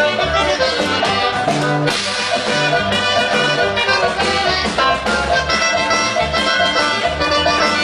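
Norteño band playing a huapango, with the button accordion carrying the melody over bass and strummed bajo sexto, steady and loud throughout.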